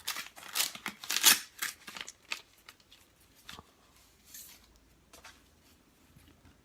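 Paper packaging being handled and opened: a quick run of rustling, tearing and snipping noises, the loudest a little over a second in, then fainter paper handling.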